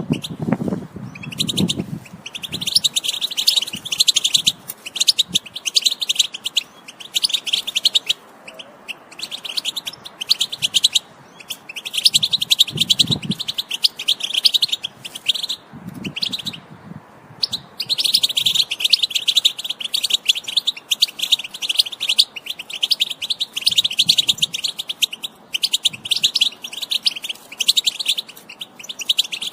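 European goldfinch singing: long runs of fast, high twittering phrases with a few brief pauses.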